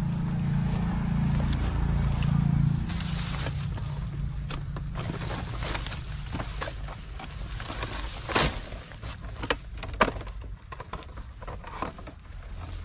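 Wire-mesh cage trap and a thin metal rod clicking and rattling as they are handled, with grass rustling; two sharper clicks stand out about two-thirds of the way through. A low hum sits underneath for the first three seconds or so, then fades.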